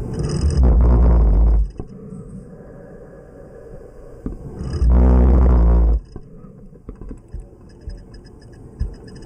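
Two loud, low, buzzing snores about four and a half seconds apart, each lasting over a second: the vibration of an obstructed upper airway during sleep breathing.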